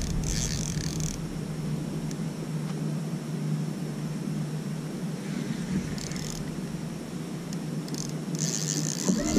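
Spinning fishing reel being cranked in short bursts while fighting a big fish on a bent rod, three spells of reeling near the start, around the middle and near the end, over steady wind and water noise with a faint low hum.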